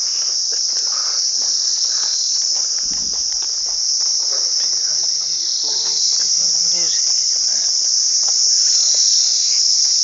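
Insect chorus in trees: a loud, steady, high-pitched shrilling that does not let up.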